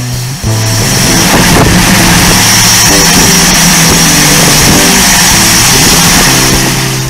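Background music: a bass line of held notes changing in steps, under a dense, noisy wash.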